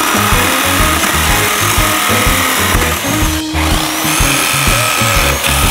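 Corded jigsaw cutting through metal plate between drilled holes, its blade rasping steadily. The motor stops briefly about three and a half seconds in and spins back up. Background music with a steady beat plays underneath.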